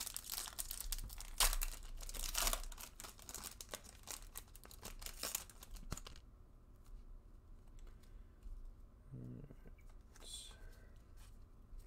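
A Bowman baseball card pack's wrapper being torn open and crinkled by hand: a dense, crackling tear that dies down after about six seconds. Then faint rustling as the stack of cards is pulled out and handled.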